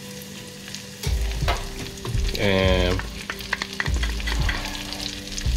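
Diced onions frying and sizzling in melted butter in a pot, with knocks as more onions are tipped in from a glass bowl and stirred with a wooden spatula. A brief squeak about two and a half seconds in.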